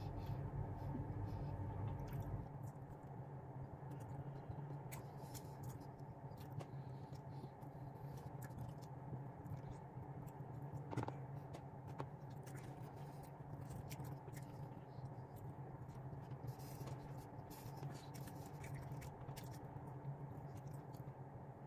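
Quiet indoor room tone: a steady low hum with scattered soft clicks and taps. A deeper rumble under it drops away a couple of seconds in.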